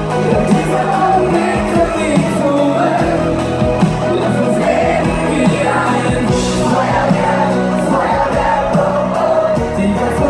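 Live pop music: a male lead vocal over a full band, played loud and steady through a concert PA.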